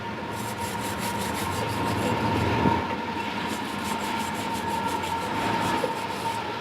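Continuous scraping and grinding of rusty metal at the snow plow's handle mount, with a steady whine underneath, as rust is cleared out of the joint.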